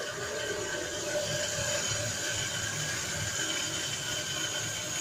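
Water running steadily from a tap on a pipe onto a galvanised metal carpet-washing table, a continuous splashing hiss.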